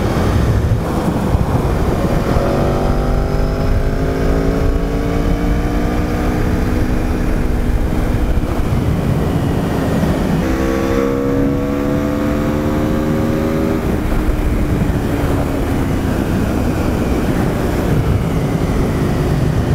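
2018 Aprilia RSV4 RR's V4 engine accelerating at highway speed, its pitch climbing slowly, with a gear change about ten seconds in before it climbs again. Heavy wind noise runs underneath.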